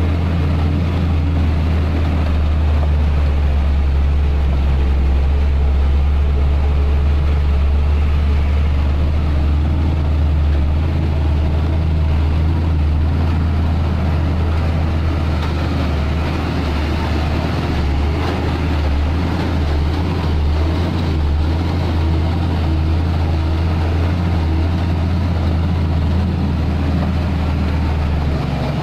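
Hino tandem-axle dump truck's diesel engine running with a steady low drone as the truck creeps along at low speed, heard close up beside the rear wheels.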